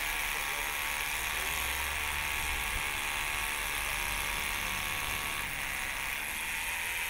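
Rotary hammer drill with an Irwin SDS Plus masonry bit hammer-drilling into a lump of reinforced concrete, running steadily under load.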